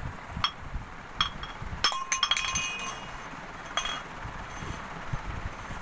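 A metal tumbler clinking and clanking against a stone floor several times. A quick cluster of strikes about two seconds in leaves a short metallic ring.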